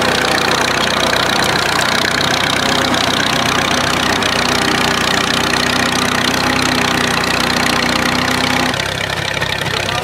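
Fordson Standard tractor's four-cylinder side-valve petrol-paraffin engine running steadily while it pulls a trailed plough through stubble. The sound drops a little and changes near the end.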